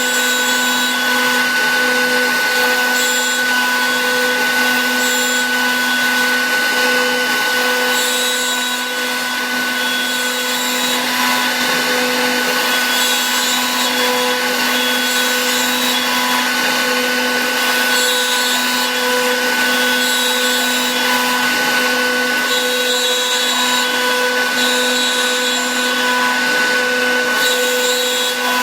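Suda ST-8070 CNC engraving-milling machine's spindle running steadily while its cutter mills foamed PVC. A constant whine with a fixed pitch sits under a cutting hiss that swells and fades as the tool moves.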